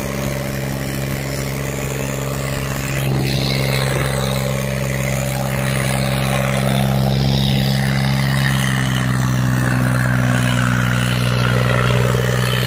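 John Deere tractor's diesel engine running hard and steady under heavy load as it drags a disc harrow through soil. It gets louder about three seconds in and again slightly after the middle.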